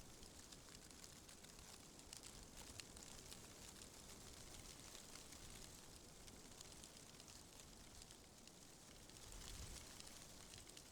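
Wind rustling through tree leaves: a faint, steady hiss with scattered small crackles, swelling slightly near the end.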